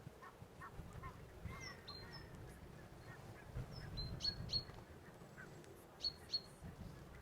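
Faint bird calls: short high chirps in quick groups, three about four seconds in and two more about six seconds in, over a low rumble.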